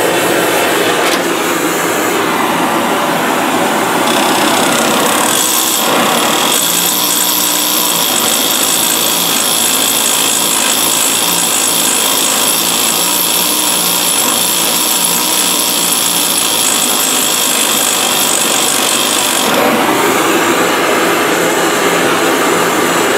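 Gas torch flame hissing on the cast iron body of a jack, heating the weld area. From about six seconds in, a stick welding arc runs steadily as a welding rod lays a bead along the crack. The torch hisses again from about twenty seconds in.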